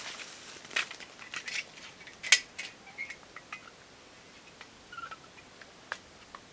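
Dry twigs and leaf litter crackling and snapping as a person moves about on a forest floor: scattered sharp clicks, the loudest a little over two seconds in.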